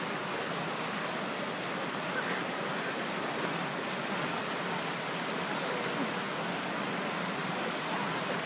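Steady rushing of a mountain creek's water.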